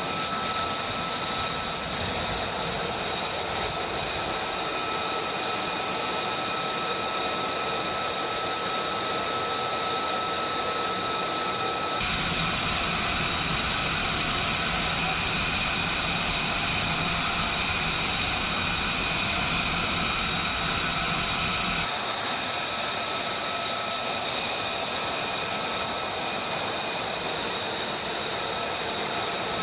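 Jet aircraft engine running steadily with a high whine, changing abruptly twice, about 12 and 22 seconds in.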